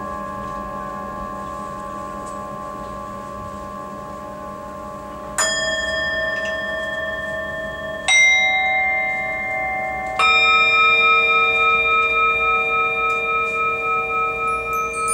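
Resonant bells struck one at a time, three fresh strikes roughly two to three seconds apart, each a clear steady ringing tone with overtones that sustains over the long ring of the strokes before it. The strike about eight seconds in is the loudest.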